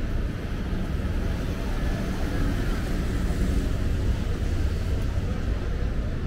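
Steady low rumble of city street traffic on wet roads, with faint voices of passers-by.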